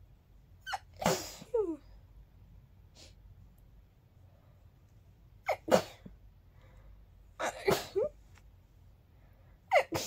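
A person sneezing three times, girlish-sounding, each a short catch before a sharp burst with a brief voiced tail. A fourth sneeze starts right at the end.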